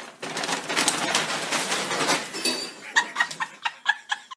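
Stiff brown paper bag crinkling and rustling as a kitten scrambles inside it, followed near the end by a quick run of short, pitched squeaks, about five a second.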